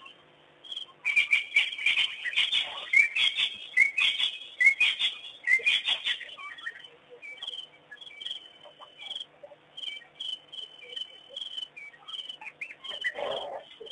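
A chorus of birds chirping and whistling at dusk, densest in the first half and then thinning to scattered calls. Near the end there is a brief lower sound.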